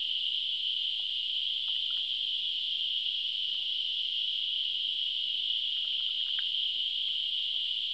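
A chorus of insects calling in a steady, unbroken high-pitched drone.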